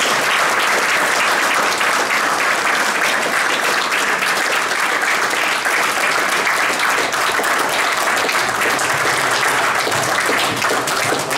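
Audience applauding steadily at the end of a lecture, many hands clapping together, thinning out near the end.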